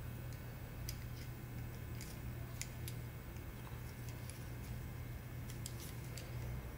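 Scattered small clicks and light metallic taps as metal camera hot-shoe and cold-shoe mounts are handled, swivelled and fitted together, over a steady low hum.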